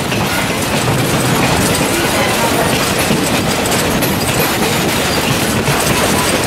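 Steady, loud running noise of a moving vehicle heard from on board, an even rush with faint clatter.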